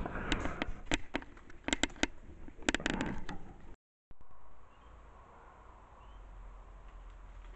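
Irregular crackling and snapping, like leaves and twigs broken underfoot as a black bear moves close to the trail camera. After a cut about four seconds in, it goes much quieter, with a low hum and a couple of faint chirps.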